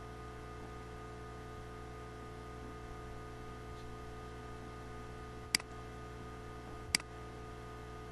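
Steady low hum with two sharp clicks about a second and a half apart, a little past halfway through.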